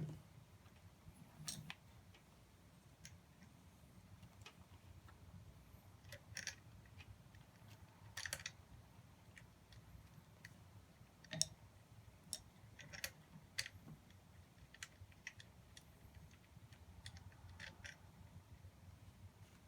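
Faint, scattered light clicks and taps of hand tools and small terminal hardware being worked while a motorcycle battery is fitted and its terminals fastened, with a low hum underneath.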